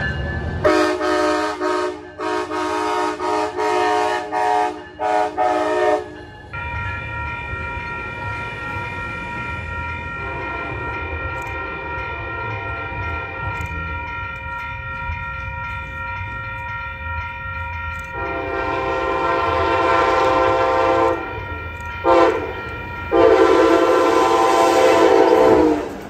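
A Coaster commuter train's horn sounds about seven short blasts in quick succession as it pulls out, answering a railfan's wave. Then a grade-crossing warning bell rings steadily. Near the end an arriving Amtrak Pacific Surfliner sounds its horn: a long blast, a short one and another long one, the crossing signal pattern.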